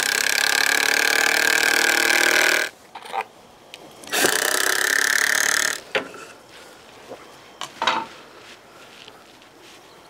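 Cordless drill driving two 2.5-inch wood screws through a pine 2x4 cross support into the tabletop boards. Its motor runs in one long steady pull of almost three seconds, then a shorter one of about a second and a half. A few light knocks of tools and lumber being handled follow.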